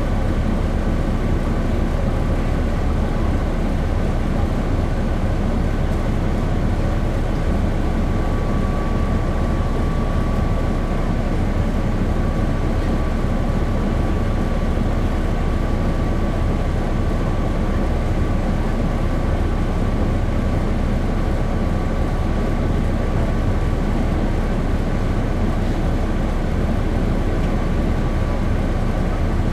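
A 1996 Nova Bus RTS transit bus with a Cummins C8.3 diesel engine, heard on board, running steadily with an even rumble. A thin steady whine rides above it.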